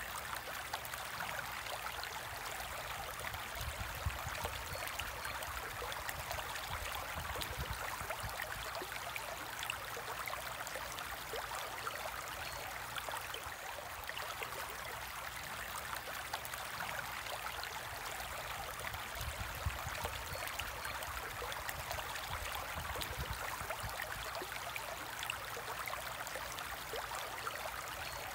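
Steady trickling and bubbling of water in a home aquarium, with a fine crackle of bubbles and a low hum underneath.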